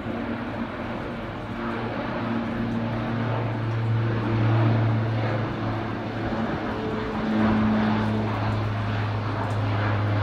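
Single-engine floatplane's propeller engine droning steadily as it climbs away just after taking off from the water, growing louder about four seconds in.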